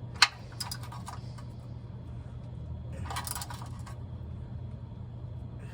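Metal clinks of a socket and wrench on a truck's oil drain plug: one sharp clink a quarter second in, a few lighter clicks after it, then a short rattle about three seconds in, over a steady low hum. The drain plug is stripped and will not turn.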